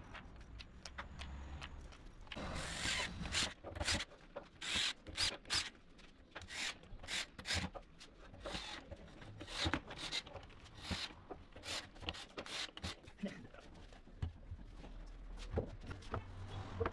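Quick scraping and rubbing strokes of wooden panels and parts being handled and slid across a wooden workbench, a rapid irregular series from about two seconds in that dies away near the end.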